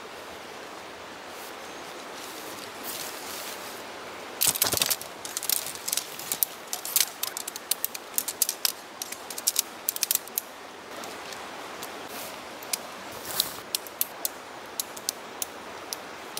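Sea to Summit Telos TR2 tent poles being snapped together and fitted to the tent: a quick run of sharp clicks and light rattles starting about four seconds in, thinning to scattered clicks near the end, over a steady background hiss.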